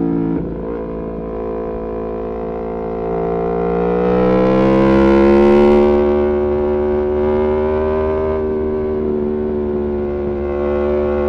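Aprilia Tuono V4 Factory's V4 engine, breathing through an Arrow GP2 exhaust with the dB killer removed, pulling on the track. The note drops at the start, then climbs steadily under acceleration to its loudest about five seconds in, and eases back to a steady drone.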